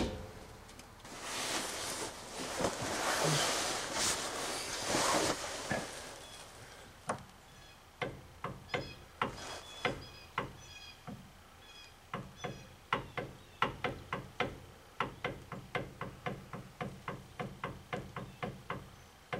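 Metal-on-metal work in a Dodge 9 1/4 differential while ring-and-pinion backlash is being set. A few seconds of scraping and rubbing give way to a long run of sharp metallic clicks, about two or three a second, each with a light ring.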